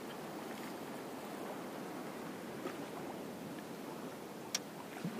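Faint, steady wash of water at an estuary shoreline, with a single faint click a little before the end.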